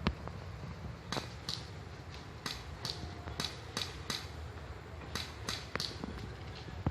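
An irregular series of short, sharp clicks, about two or three a second, over a steady low rumble.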